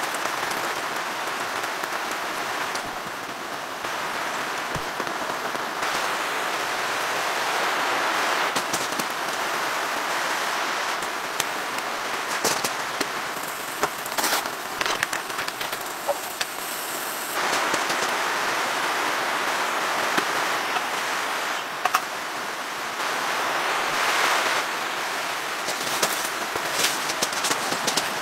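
Rain falling steadily on a tent, a continuous hiss with scattered sharp clicks and crackles that change in level from shot to shot.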